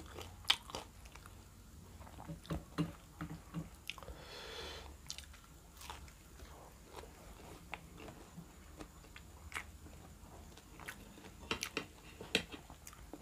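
A person biting and chewing a fried pyaji (purple-cabbage fritter): scattered soft crunches and mouth clicks.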